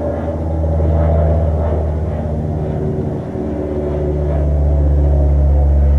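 Steady low motor drone with a shift in pitch about halfway through, growing a little louder after.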